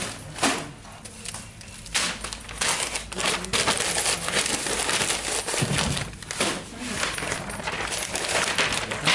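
Newspaper rustling and crinkling as it is handled and wrapped around a coil of paper firecrackers, with many quick clicks and taps throughout.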